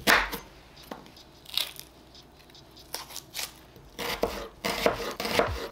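Kitchen knife chopping an onion on a wooden cutting board: a few separate cuts, then quicker strokes in the last second and a half.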